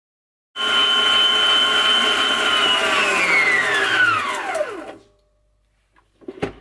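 Moulinex stand mixer's motor running fast with its whisk beating egg whites and sugar for meringue, then switched off: its whine falls in pitch as it spins down and stops. A sharp click follows near the end.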